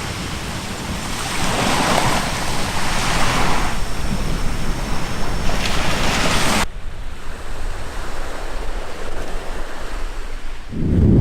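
Wind buffeting the microphone over breaking surf, a rushing noise that rises and falls in swells. About two-thirds of the way through, the sound abruptly turns duller. Just before the end, a loud low rumble sets in.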